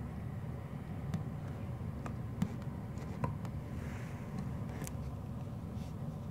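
Samoyed puppy chewing a toy bone inside a plastic cone collar: scattered sharp clicks and knocks of the bone against teeth and the cone, over a steady low rumble.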